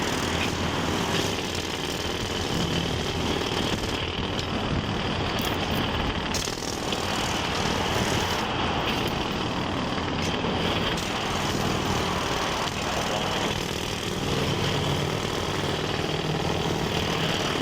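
Heavy construction-site machinery: a large engine running steadily, a low hum under a dense wash of mechanical noise.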